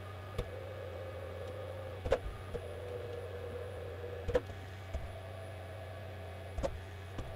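CNC milling machine's axis motors driving a 3D touch probe through an automatic hole-centre probing cycle: a steady motor whine over a low hum, with a sharp click about every two seconds.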